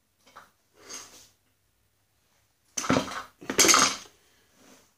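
Steel-rimmed tractor wheels and metal parts being handled: a couple of soft knocks early, then two loud bursts of metallic clattering and knocking about three seconds in.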